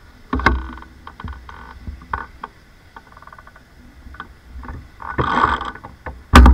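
Bike-mounted action camera jostled by the electric bike riding over the road: irregular knocks and rattles with short rushes of noise, and the loudest knock near the end.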